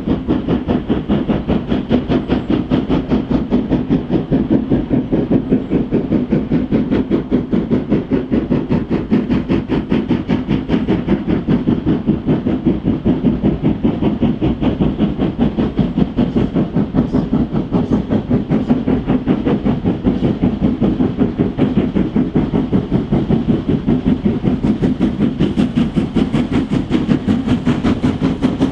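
Two-cylinder mainline steam locomotive working a train, its exhaust beating in a fast, even rhythm, growing hissier near the end.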